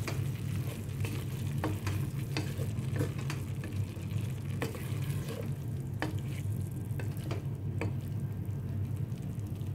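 A spatula stirs minced meat, tomatoes and onions frying in a metal pot: a soft sizzle with irregular scrapes and knocks of the spatula against the pot, over a steady low hum.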